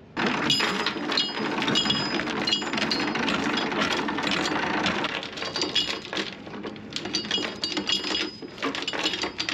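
Metal anchor chain rattling and clinking as it is hauled up by hand, with many sharp metallic chinks over a steady clatter.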